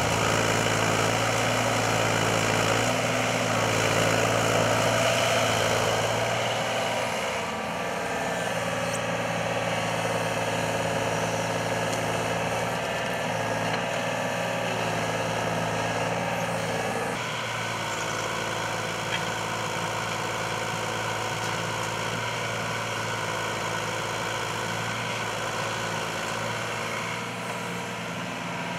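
Gehl Z27 compact excavator's diesel engine running steadily while the machine digs with its bucket, its tone shifting abruptly about seven and seventeen seconds in.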